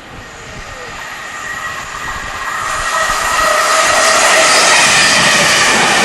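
Stansted Express electric train approaching along the track, its rushing noise and a high whine of several steady tones growing steadily louder for about three and a half seconds, then holding loud as it draws level.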